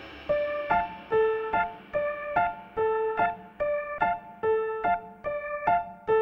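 Background music: a piano playing a gentle, repeating pattern of single notes, about two to three a second, starting about a third of a second in.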